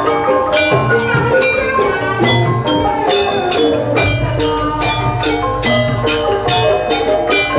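Live Banyuwangi gamelan music accompanying the dance: struck metallophone keys and gongs over drumming, with a steady beat of sharp strokes, about three a second, setting in about three seconds in.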